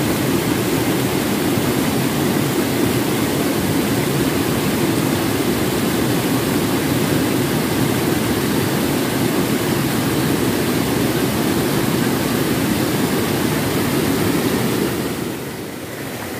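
Loud, steady rush of river water pouring over rocks in a small cascade of white-water rapids, easing somewhat near the end.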